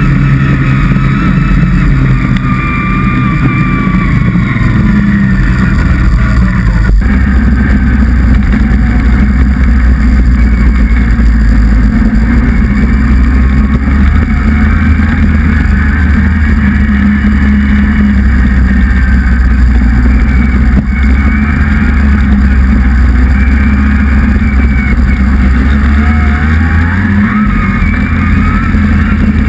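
A vehicle engine running steadily under way, its pitch dropping abruptly to a lower, steady note about seven seconds in.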